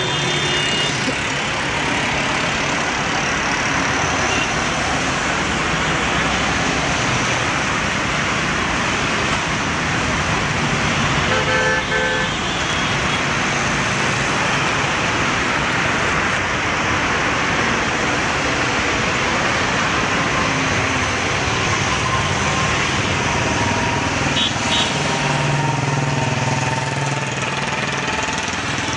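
Busy city road traffic: a steady wash of engine and tyre noise, with short car horn toots just after the start, about halfway through and near the end.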